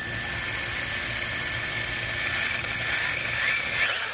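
RC car's brushless motor and drivetrain spinning up under light throttle on the bench, driven by a Castle Mamba Monster XL2 ESC, with a high steady whine and whirring; the pitch rises briefly near the end. The ESC is running the motor normally after its blown capacitors were replaced.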